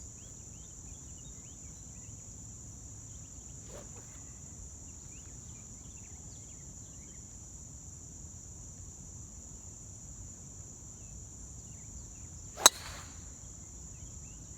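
A steady high drone of insects with scattered small chirps. About 12.7 s in comes a single sharp crack of a golf club striking the ball on a full swing.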